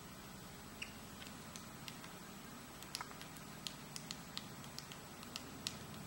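A female Black-backed Woodpecker flaking bark off a dying spruce: faint, sharp taps and clicks at irregular intervals as her bill strikes and pries at the bark.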